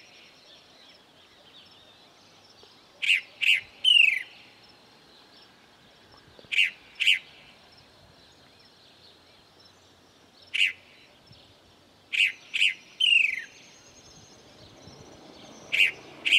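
Chalk-browed mockingbird (sabiá-do-campo) singing: loud, short notes in pairs or threes, some phrases ending in a falling slurred note, repeated every three to four seconds.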